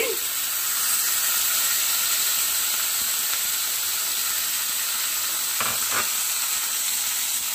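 Soaked samak (barnyard millet) rice sizzling in hot ghee in a frying pan just after it is added: a steady, even hiss. Two short clicks about six seconds in.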